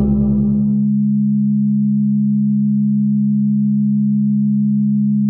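Singing-bowl music stops about a second in, leaving a few steady low pure sine tones, the healing frequencies of 141.27, 207.36 and 210.42 Hz, held unchanging with a slight regular pulsing.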